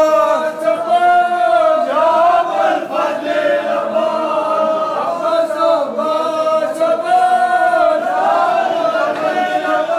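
Group of men chanting a Muharram mourning lament (noha) together, in long, drawn-out lines that rise and fall in pitch.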